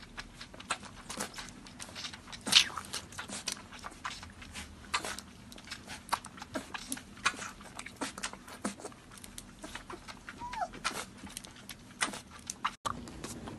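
Puppy suckling from a milk bottle: irregular wet clicks and smacks of sucking on the teat, with one brief high squeak about ten and a half seconds in.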